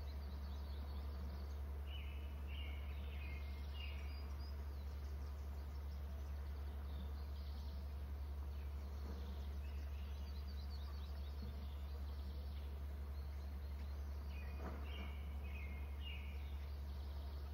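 Small songbirds singing: the same short song of a few quick repeated notes comes twice, a couple of seconds in and again near the end, with scattered higher chirps between. Under it runs a steady low hum, the loudest sound throughout.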